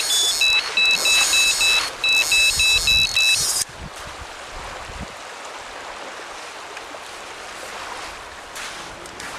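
Electronic carp bite alarm sounding a fast run of beeps that alternate between two pitches, with a harsh hiss, for about three and a half seconds: a fish taking line. It stops abruptly, leaving a steady wash of wind and lapping lake water.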